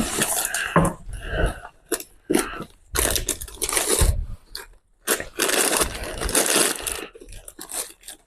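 Irregular bursts of rustling and crunching from hands rummaging through a bag or clothing for a pair of glasses, with a brief pause about five seconds in.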